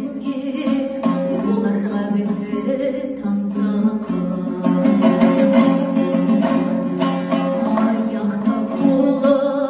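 A woman singing a Kazakh song in a clear held voice to her own two-stringed dombra, strummed in a quick steady rhythm under the melody.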